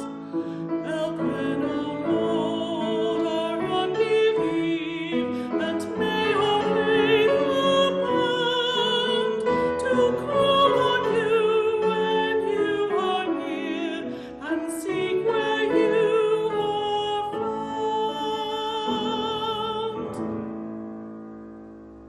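A solo female voice sings with strong vibrato over instrumental accompaniment, the music fading out near the end.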